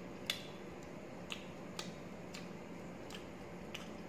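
Eating sounds from eating rice and chicken liver by hand off a steel plate: about seven small sharp clicks scattered through, the first the loudest, over a faint steady hum.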